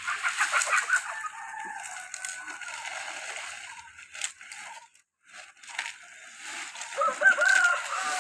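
A rooster crowing twice, at the start and again near the end, each crow a long held call that falls away at its end. A few sharp clicks come between the crows.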